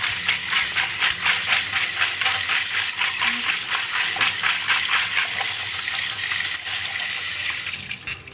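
Electric mixer grinder grinding whole spices and coconut into a masala paste: a loud, even grinding noise with a fast pulse that cuts off abruptly near the end.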